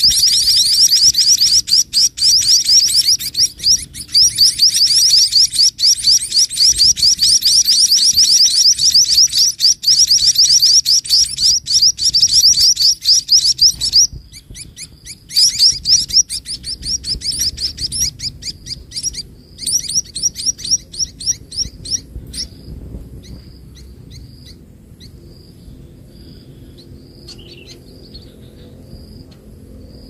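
Munia nestlings begging: a dense run of rapid high chirps, several a second, which breaks off about fourteen seconds in, comes back for several seconds, then thins to a few scattered faint calls.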